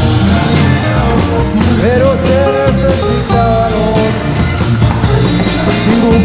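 Music: a song with a singing voice over guitar and a steady drum beat.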